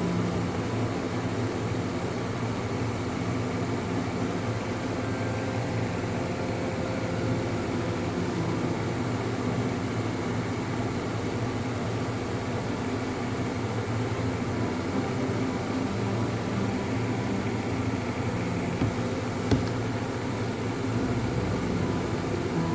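Steady low hum, like a fan or air conditioner running, with a single faint click a few seconds before the end.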